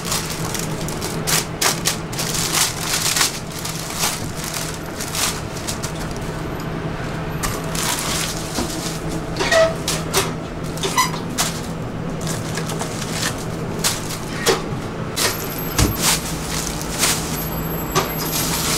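Paper crinkling and rustling as falafel wraps are wrapped and handled, with scattered clicks and knocks over a steady low hum.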